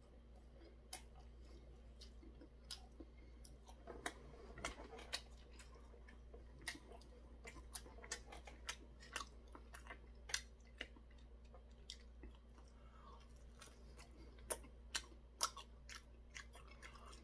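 Faint, close-up chewing of crispy battered fried food (Korean twigim), with irregular crunches and mouth clicks.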